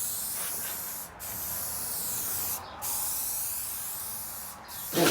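Rust-Oleum 2X aerosol spray-paint can hissing in long passes across a car hood while a coat of paint goes on, with three short breaks between strokes. A brief voice sound comes right at the end.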